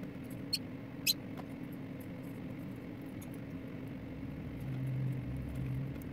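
Steady low hum with a few short, high chirps from small pet parrots in the first second and a half, and a brief low drone about five seconds in.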